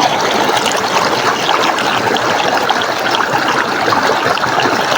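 River water flowing over rocks: a steady rush with dense small splashing and trickling.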